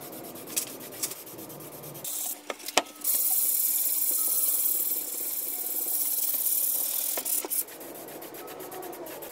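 Aerosol can of filler primer spraying: a steady hiss for about four seconds, starting about three seconds in and stopping near the end, after a few short clicks.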